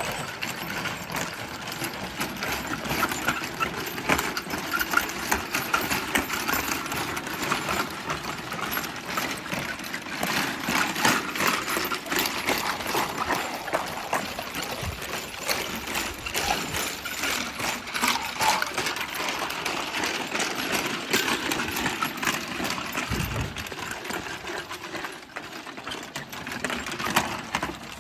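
Metal chains of a chain bridge obstacle rattling and clanking continuously as a Malinois runs across it, a dense stream of quick clinks and knocks.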